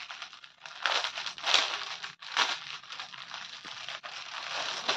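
Clear plastic garment packet crinkling and rustling under the hands as it is opened and folded cloth is worked out of it, with louder crackles at intervals, the loudest about one and a half seconds in.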